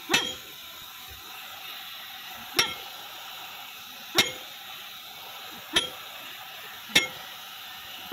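Five ringing hammer blows on the steel master pin of an excavator track chain, spaced irregularly, as the heated pin is driven out. Under them runs the steady hiss of the gas torch heating the pin.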